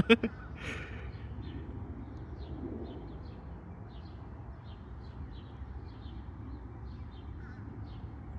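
Small birds chirping faintly, short calls repeating about every half second over a low steady outdoor rumble. A brief loud sound comes right at the start.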